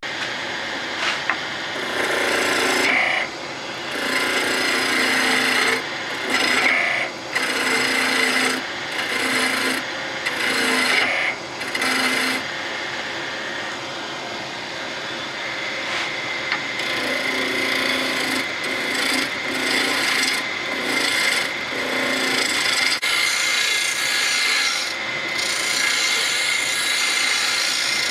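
A turning tool cutting a spinning wooden spindle blank on a wood lathe: a rough scraping cut. It comes in repeated short passes of about a second each through the first half, then runs more continuously.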